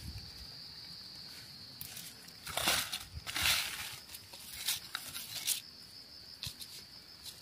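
A steady high-pitched insect drone, with several short rustles of leaves and brush as someone moves through low undergrowth, the loudest about two and a half to three and a half seconds in.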